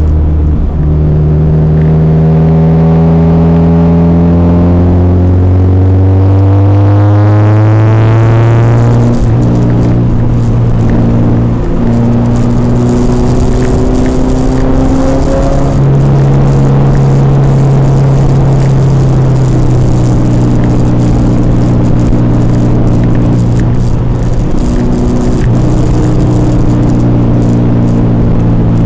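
Car engine heard from inside the cabin, pulling with its pitch rising steadily for the first eight seconds or so, then changing gear and running at a fairly steady speed with small rises and falls.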